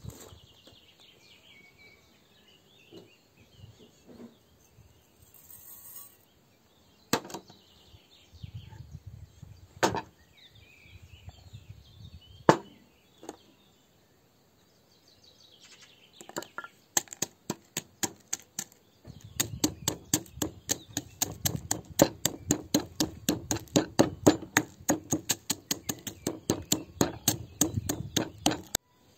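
Wooden pestle pounding rapidly in a ceramic mortar, crushing dry toast into crumbs, about four or five sharp strikes a second that begin halfway through, after a few scattered knocks of ingredients being handled on a wooden board.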